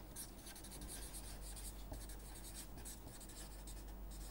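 Permanent marker writing on paper: a run of short, faint scratchy strokes as words are written out by hand.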